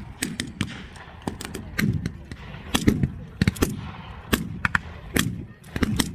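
Reenactors' blank-firing small arms in a mock battle: irregular single shots and short quick strings of shots, some overlapping, spread throughout.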